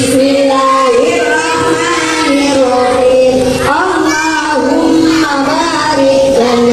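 A children's song: a child's singing voice, with held notes stepping up and down, over a music backing.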